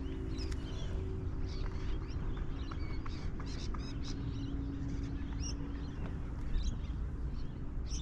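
Scattered short bird chirps and calls over a steady low rumble, with a faint steady hum in parts.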